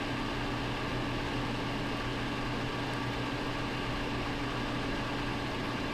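Clothes dryer running: a steady hum with a low drone that doesn't change.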